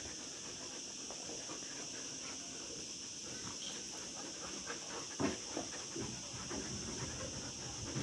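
Dogs panting and moving about, with a few short, sharper sounds from about five seconds in.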